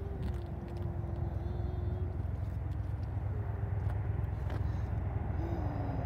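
Steady low rumble of an aircraft flying in low toward the listener. A thin drawn-out tone holds at one pitch through the first two seconds.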